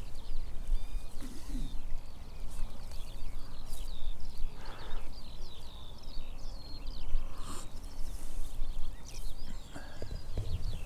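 Small songbird twittering continuously in quick high chirps, over low rumbling wind buffeting the microphone.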